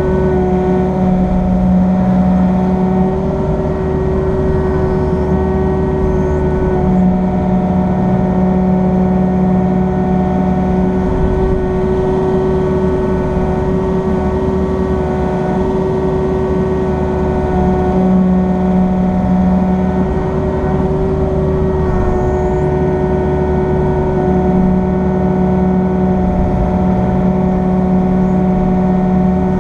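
Excavator engine running steadily, heard from inside the closed cab while the grapple is being worked, with a low droning tone that comes and goes several times.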